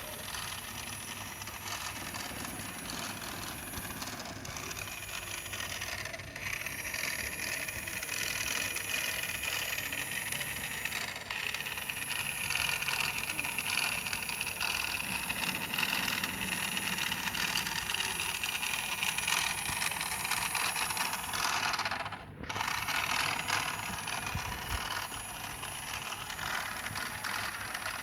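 Toy remote-control car running: a small electric motor whirs with a rattling mechanical noise. It grows louder in the middle and cuts out for a moment about three-quarters of the way through.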